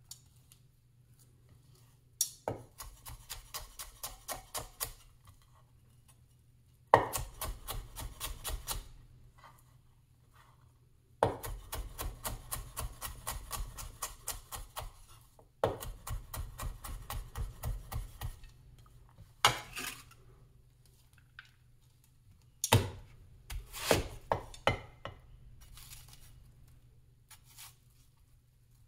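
Vintage Chinese cleaver chopping red onion, the blade knocking on a wooden cutting board in rapid runs of about four to five strokes a second, with short pauses between runs. Toward the end come a few single, separate knocks.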